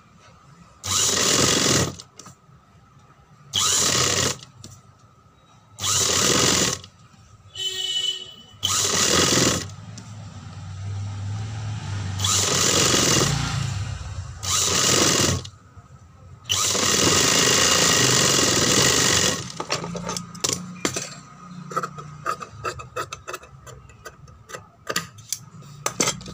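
Industrial sewing machine stitching cotton fabric in about eight short runs of one to three seconds, stopping and starting as the fabric is guided around a curved edge. In the last few seconds come light clicks and taps.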